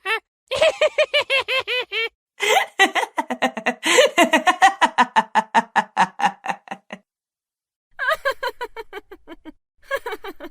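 A string of separate recorded laugh sound effects, one after another with short gaps. A quick burst of laughter comes first, then a long laugh of rapid 'ha' syllables lasting about four and a half seconds. After a pause come two more short laughs.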